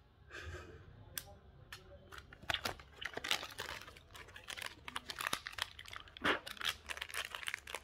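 Thin plastic wrapper crinkling and tearing as a small packet is picked and pulled open by hand, an irregular run of sharp crackles that gets busier about halfway through.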